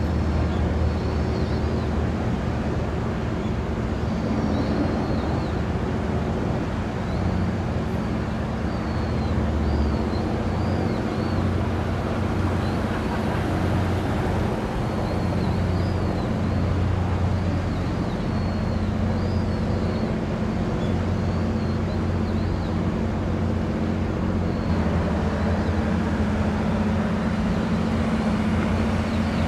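Steady low engine drone with a few constant tones, over a constant rushing noise of outdoor traffic. Faint high chirps come and go above it.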